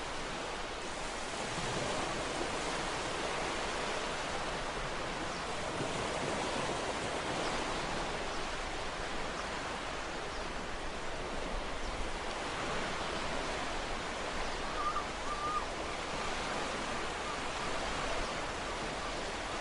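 Ocean surf washing onto a shore in a continuous rush that swells and eases gently.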